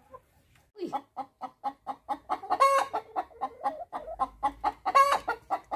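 Hens clucking in a fast, even run of short clucks, about five a second, starting about a second in. Two longer, louder squawks stand out, one midway and one near the end.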